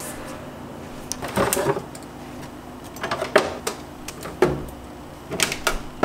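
Plastic condiment bottles and jars knocking and clattering against a refrigerator's plastic door shelves as they are taken out, in four short bursts of clatter over a low steady hum.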